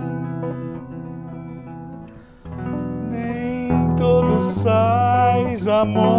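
Hollow-body archtop electric guitar playing slow, ringing chords of a song, with a short break a little past two seconds. A man's singing voice with vibrato comes in over the guitar about four seconds in.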